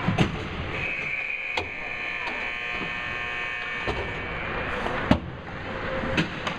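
Ice hockey rink sounds: sharp knocks of sticks and puck against the boards and ice over a steady arena hubbub, the loudest knock about five seconds in. A high steady tone rings for about three seconds starting about a second in.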